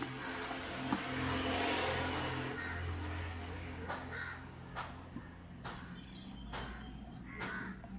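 Background noise that swells and fades like a passing vehicle, over a low steady hum, with several sharp clicks in the second half and a few short calls.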